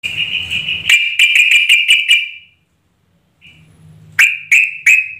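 Yellow-vented bulbul (trucuk) calling: a quick, rattling run of about seven high notes over the first two seconds, then, after a short pause, three short sharp notes near the end. It is the lure call used to set other trucuk calling back.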